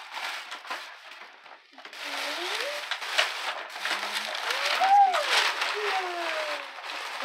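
Tissue paper and a paper gift bag rustling and crinkling as clothes are pulled out of the bag, getting louder about two seconds in. A few drawn-out vocal exclamations rise and fall over it in the second half.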